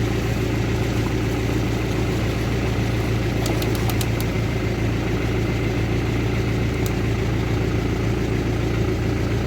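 Car engine running steadily at low revs, with a few light clicks about three and a half to four seconds in.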